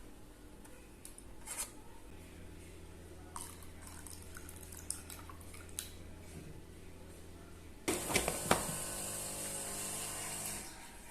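A tap running into a sink for about three seconds near the end, starting suddenly. Before it, a low steady hum with a few light clicks.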